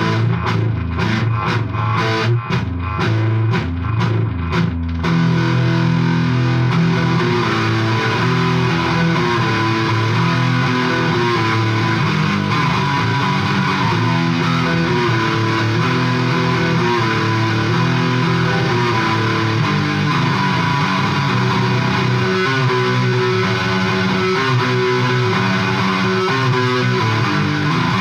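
Electric guitar being played for a sound check: short, choppy chords for about the first five seconds, then continuous playing.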